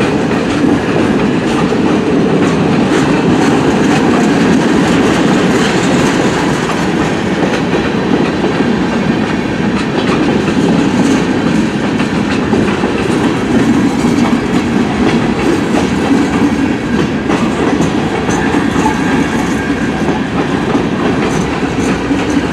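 Freight train cars rolling steadily past, with wheels clicking over the rail joints.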